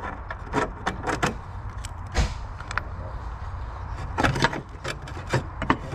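Hand tools clicking and knocking on a steel bracket in short, irregular clusters as hinge bolts are worked loose under the front of a DeLorean DMC-12, over a steady low hum.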